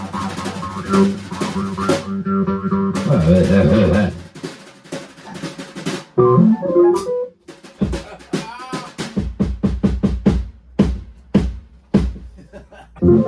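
Live rock instruments playing: electric guitar and bass hold ringing notes over drum kit hits, with a wavering, bent pitch about three to four seconds in. After that come scattered, irregular drum and cymbal hits with deep kick-drum thuds.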